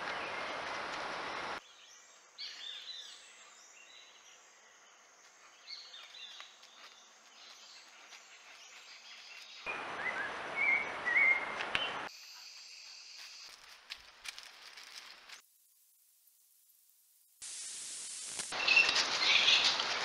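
Outdoor forest ambience recorded by trail cameras: a steady background noise with scattered bird chirps, loudest about halfway through and near the end. The background changes abruptly several times as one recording cuts to the next.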